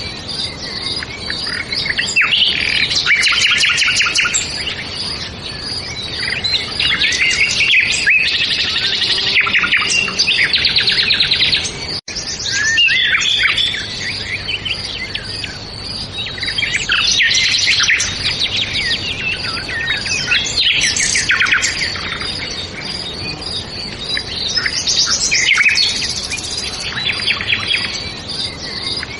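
A chorus of small songbirds chirping and trilling, many high calls overlapping without pause, with a momentary dropout about twelve seconds in.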